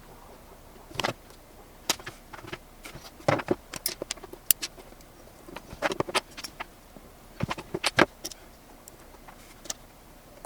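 Irregular light clicks and taps from small metal tools and parts being handled while brass threaded inserts are heat-set into 3D-printed plastic pieces, with a slightly heavier knock about three seconds in.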